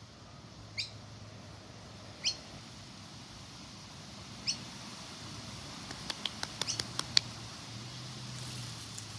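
A small bird chirps three times, short sharp calls a second or two apart, followed later by a quick run of sharp clicks, over a faint steady low hum.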